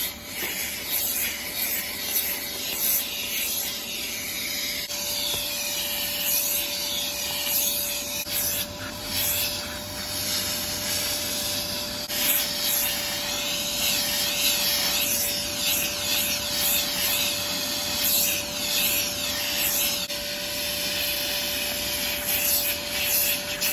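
Armor All AA255 2.5-gallon wet/dry shop vacuum running and in use, its airy suction hiss shifting as the nozzle is worked. A steady whine joins in about five seconds in.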